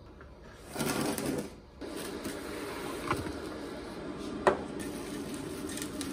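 Plastic cling film rustling and crinkling as it is pulled out and handled on a wooden worktop, with a loud rustling burst about a second in and a sharp knock a little after four seconds.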